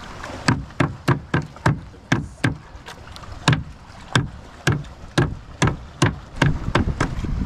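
Cleaver chopping a tulingan (bullet tuna) on a wooden plank: a string of sharp knocks, about two a second with a short pause near the middle, as the fish is minced into chum to draw fish up.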